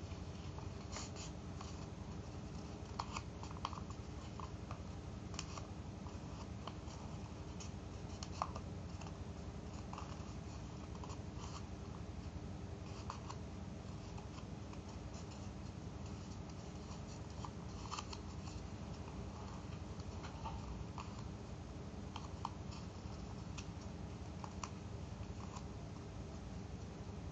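Paper being folded and creased by hand: scattered soft crinkles and clicks over a steady low background hum.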